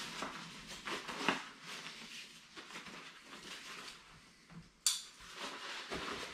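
Rustling of a lightweight nylon dry bag being handled and rolled closed, with soft handling knocks. A single sharp click comes near the end.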